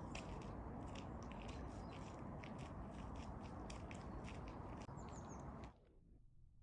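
Footsteps on a forest path, a quick run of short crunchy steps that cuts off suddenly near the end.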